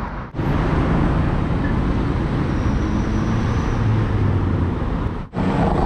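Busy city road traffic: cars and taxis running through a junction, a steady rush of engine and road noise, with a low engine hum swelling about four seconds in.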